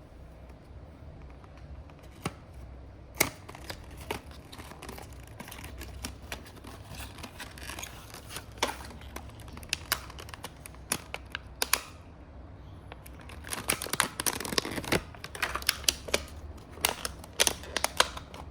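Scattered sharp clicks, taps and rustles of a model bus and its packaging being handled and unboxed, growing busier for the last few seconds.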